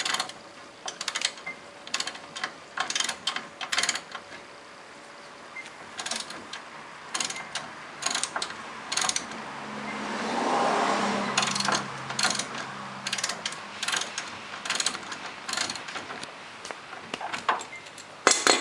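A 3/8-inch-drive ratchet clicking in short irregular bursts, working a hex-bit socket on a brake caliper bolt. A steady low hum lasts a few seconds around the middle.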